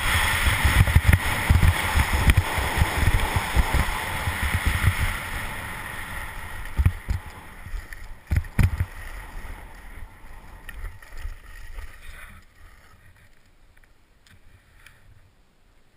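Skis scraping over chopped-up piste snow, with wind buffeting the body-mounted camera's microphone during a fast ski descent. A couple of knocks come about seven and eight and a half seconds in, and the noise fades away over the second half as the skier slows to a stop.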